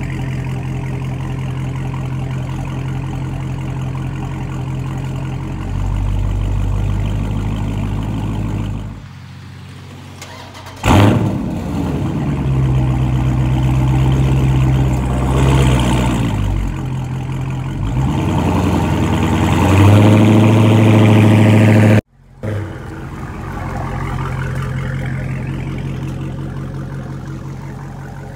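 Dodge Charger Scat Pack's 392 HEMI V8 exhaust: idling steadily, dropping away for a couple of seconds, then coming back with a sharp, loud start-up flare. It is revved up and down several times, then settles to a steady run that fades as the car backs away.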